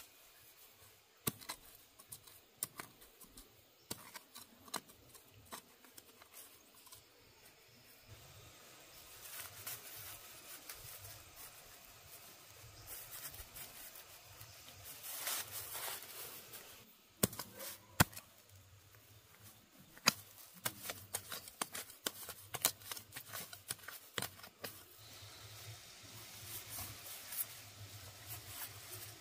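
Dry rice straw mulch rustling and crackling as hands part it and press seedlings into the soil, with many scattered sharp clicks and a few louder bursts of rustling.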